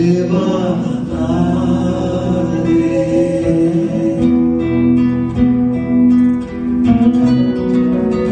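Acoustic guitar strummed and plucked, with singing that holds long notes.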